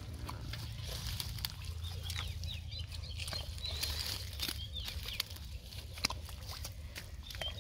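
Clumps of water hyacinth torn up by hand from wet mud, their roots and the mud crackling and squelching in many short clicks, with birds chirping in the background.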